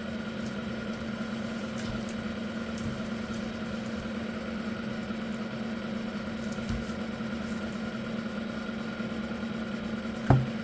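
Steady mechanical hum from a running appliance or motor, with a short knock near the end.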